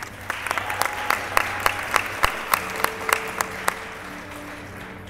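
Audience applauding, with loud, sharp single claps from someone close by over the general clapping; the applause dies away after about four seconds.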